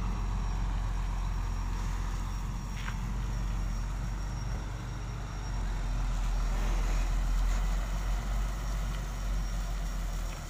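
Diesel engine of a loaded flatbed truck running steadily at low revs as the truck creeps forward.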